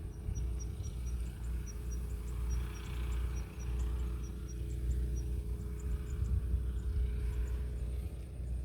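Faint, short, high peeps of a baby bird, repeating two or three times a second for about five seconds, over a steady low rumble and a faint hum.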